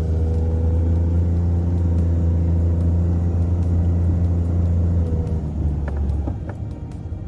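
Steady low drone of a car running, which eases off about five and a half seconds in.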